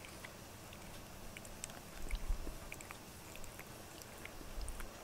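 A domestic cat grooming itself, licking its fur: a run of small, wet, irregular clicks of the tongue. A couple of low thumps come about two seconds in and near the end.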